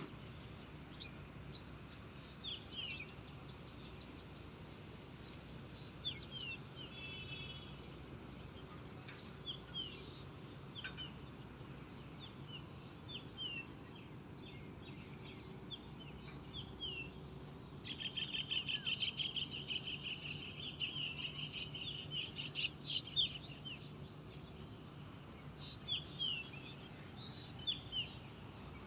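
Birds calling with short, quick chirps throughout, with a faster run of rapidly repeated notes from about 18 to 23 seconds in. A steady, high insect buzz runs underneath.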